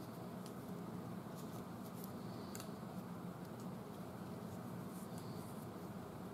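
Faint clicks and light scraping of small metal suspension parts, the trunnion kit's pin and bushings, being handled and fitted together by gloved hands, over a steady low hum.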